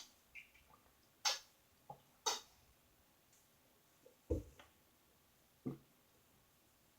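A few scattered, quiet wet mouth clicks and lip smacks from eating, about eight in all, with a soft thump a little past four seconds in.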